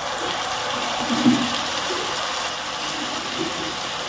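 Mustard-and-poppy-seed paste sizzling steadily in hot oil in a wok, just after being poured in, with a brief soft bump about a second in.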